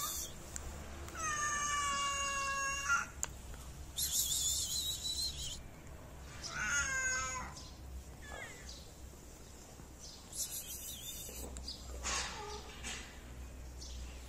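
Stray cats meowing three times: a long, steady meow about a second in, a shorter meow falling in pitch near the middle, and a faint one near the end. Short bursts of high, hiss-like noise come between the meows.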